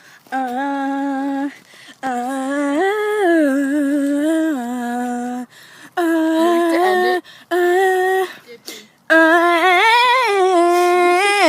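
A person humming a wordless tune in four long held phrases with short breaks, the notes stepping up and back down, with a wavering rise near the end.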